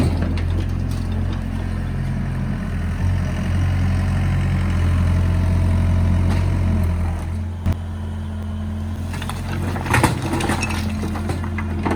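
Doosan excavator's diesel engine running under load, pulling harder through the middle and easing off about seven seconds in. A sharp knock follows, then a short clatter of impacts about ten seconds in.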